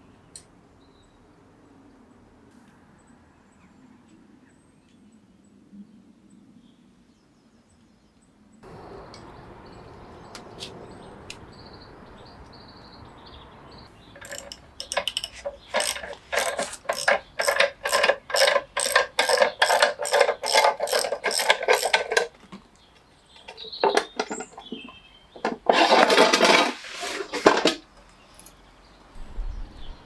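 Ratchet wrench being worked on a nut at a motorcycle wheel hub, clicking in an even run of about two to three strokes a second for several seconds, then a longer, denser burst of ratcheting. Birds chirp faintly in the quieter first part.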